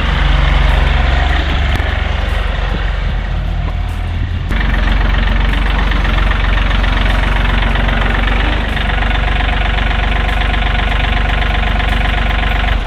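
John Deere compact tractor's diesel engine running steadily as it drives with its front loader raised. The sound changes suddenly about four and a half seconds in.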